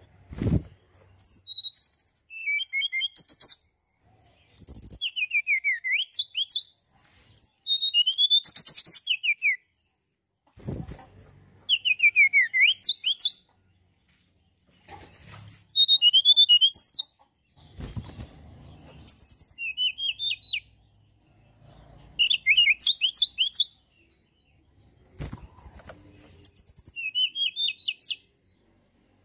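Tledekan gunung (white-browed shortwing) singing: a series of rapid, high, jumbled phrases with fast up-and-down glides, each about two seconds long, repeated with short pauses between them. A few dull low thumps fall between the phrases.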